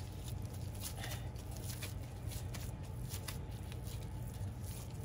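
Faint crinkling of disposable plastic gloves and soft squishing of raw ground beef as hands pat and shape it into a patty, over a steady low hum.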